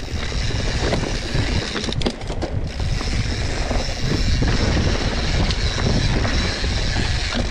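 Mountain bike descending a rough, technical trail at speed: wind rushing over the microphone and the steady rattle and clatter of the tyres and bike over the ground.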